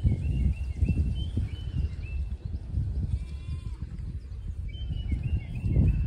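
Uneven low rumble of wind on the microphone, with faint bird chirps and a short sheep bleat about three seconds in.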